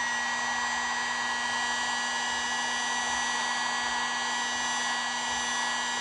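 Drill Master heat gun running steadily. A fan-motor hum with a high whine over a rush of blown air as it warms a plastic part to soften it.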